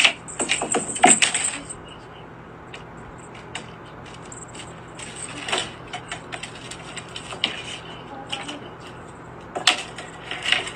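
Light taps and clatter of a cat playing with a small toy on a wooden floor: the toy and paws striking the boards. The clicks bunch near the start, about halfway and near the end, over a faint steady low hum.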